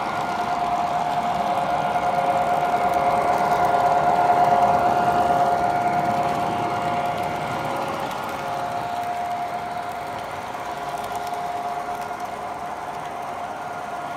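O-gauge model train of MTH Rio Grande diesel locomotives and passenger cars running past, the locomotives' onboard sound system playing a steady diesel engine sound over the hum of the motors and wheels on the track. It grows loudest about four seconds in as the train passes, then slowly fades.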